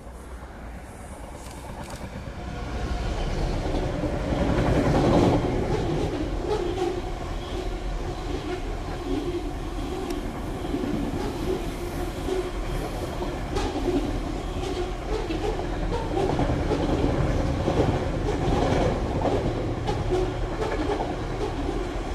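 Class 66 diesel-electric freight locomotive, with its two-stroke EMD V12 engine, running past below and loudest about five seconds in. It is followed by a long train of loaded waste-container wagons rumbling steadily, their wheels clacking over the rails.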